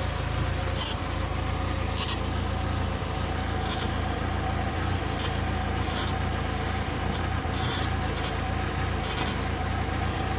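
Chevrolet Niva's 1.7-litre four-cylinder engine idling steadily, with short, irregular high hissing or scraping noises about once a second over the hum.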